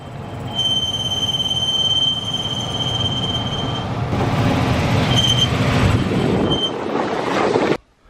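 Bryant furnace blower motor running with a steady rush of air and a high-pitched squeal. The squeal holds one pitch for about three seconds, then comes back as short chirps. This is the squeak of a dry motor bearing that needs oil.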